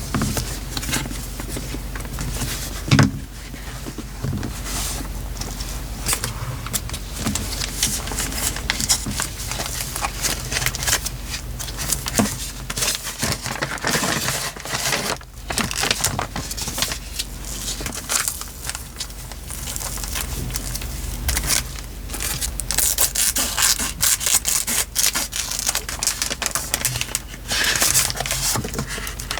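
Paper and sticker sheets being handled: crinkling, rustling and scraping in irregular bursts, with a single louder knock about three seconds in.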